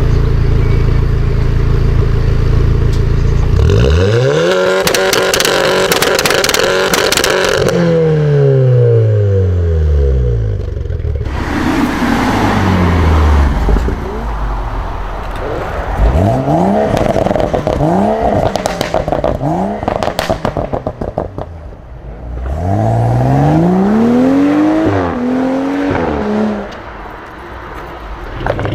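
A modified car engine with an aftermarket exhaust starts at a steady idle, then is revved hard several times: one long rev held for a few seconds, then a run of quick blips. Crackles and pops come from the exhaust as the revs fall.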